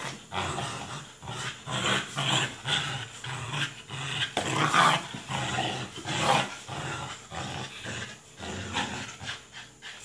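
American Bully puppy growling in short, irregular bursts while tugging and jumping at a toy.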